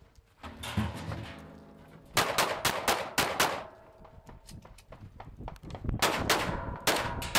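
Semi-automatic pistol fired in rapid strings: about seven quick shots a couple of seconds in, a pause of about two seconds, then another fast string near the end.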